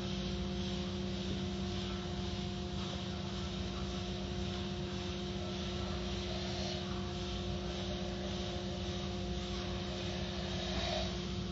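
Automatic tunnel car wash machinery running: a steady motor hum over the even hiss of water spraying onto a car and the hanging cloth strips.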